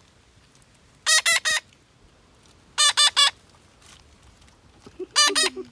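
Young parrot calling: three bursts of shrill, harsh calls, each burst three quick notes, about two seconds apart.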